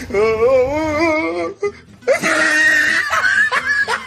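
A person's voice in a long, wavering wail, then after a short pause a louder, shrill cry.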